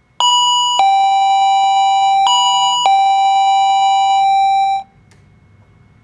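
Front doorbell chime sounding 'ding-dong' twice, a higher note followed by a lower one each time. The notes ring on steadily, then cut off suddenly just before five seconds in.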